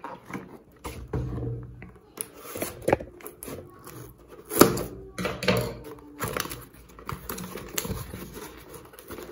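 Scissors cutting open the packaging of a cardboard box, then the box being handled and its flaps opened: irregular snips, scrapes and cardboard rustles, with the loudest sharp click about four and a half seconds in.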